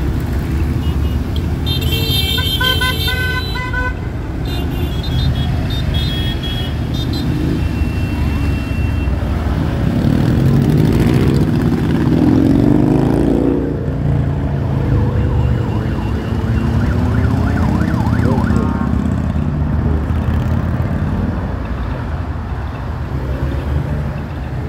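A procession of motorcycle engines rumbling as the bikes ride past, their engine notes rising and falling as bikes go by in the middle. A brief steady high-pitched tone sounds about two seconds in.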